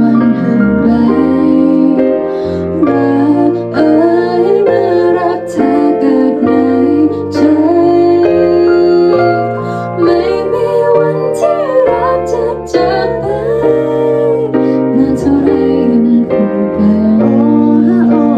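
A woman and a man singing a Thai song into handheld microphones over a recorded backing track with sustained chords.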